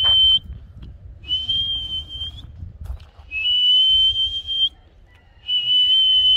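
A high, steady whistle sounding in long held notes, each a second or more, repeated about every two seconds with short gaps.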